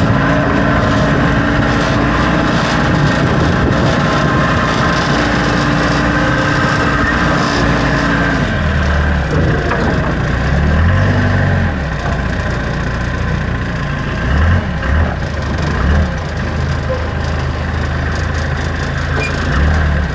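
Backhoe engine running at steady revs, then dropping to a lower pitch about eight seconds in, with a few short swells in revs after that.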